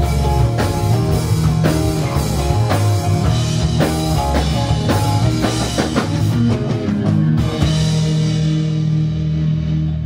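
Swamp rock band playing an instrumental passage on drum kit, bass guitar and guitar. About seven and a half seconds in the drums drop out, leaving sustained guitar and bass.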